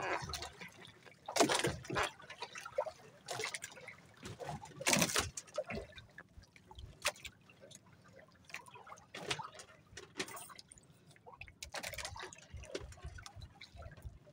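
Water splashing and trickling in irregular bursts, with a few louder splashes among quieter dripping.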